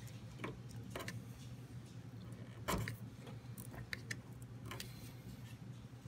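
Faint plastic clicks and taps as the front-panel USB 3.1 Gen 2 cable connector is handled and pushed into its motherboard header, the sharpest click a little under three seconds in.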